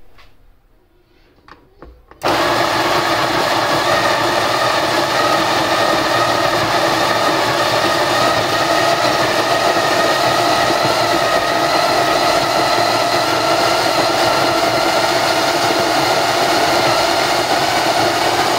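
A few light clicks, then about two seconds in a Graef CM 702 electric burr coffee grinder starts and runs steadily, grinding coffee beans into an espresso portafilter held under its spout.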